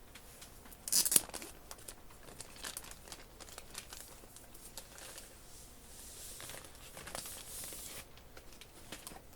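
Plastic packaging of a diamond painting kit being handled: a short loud tearing sound about a second in, then irregular crinkling and rustling.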